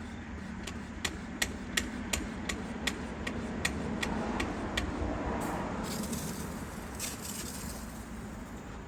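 HDX pump-up deck sprayer being hand-pumped to build pressure, a sharp click on each stroke, between two and three a second. The pumping stops about halfway through, followed by a couple of short hissing bursts.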